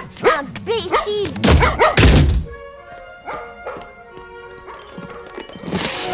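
Comic sound effects over music: quick bending pitched sweeps and a couple of heavy thunks in the first two seconds, then music with held notes.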